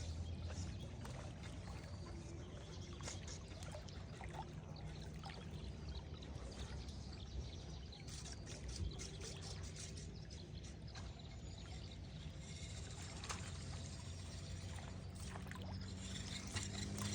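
Water lapping and trickling against a small boat's hull, with scattered faint ticks over a faint low steady hum.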